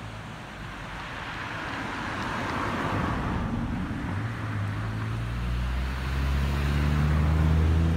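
A motor vehicle going by: a swell of road noise, then from about halfway a low engine note that grows louder and slowly rises in pitch as it accelerates.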